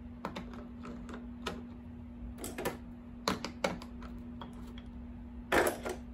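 Scattered clicks and taps of hand tools working on an electric guitar's control knobs and hardware, with a louder knock near the end. A steady low hum runs underneath.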